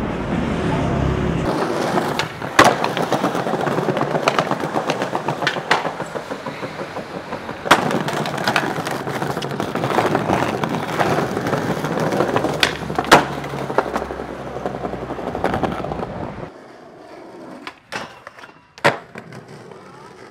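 Skateboard wheels rolling over rough street pavement, with a series of sharp cracks of the board striking the ground. It goes quieter near the end, with two more cracks.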